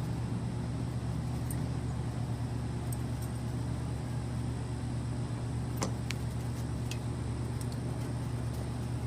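A steady low mechanical hum, with a few faint clicks about six and seven seconds in.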